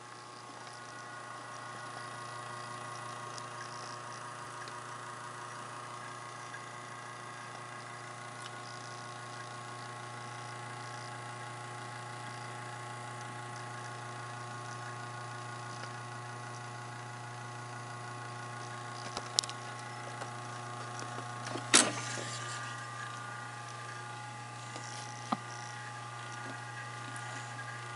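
Webcor CP2522 reel-to-reel tape deck humming steadily, a low electrical hum with higher steady tones over it. A few sharp clicks break in about two-thirds of the way through, the loudest near 22 seconds.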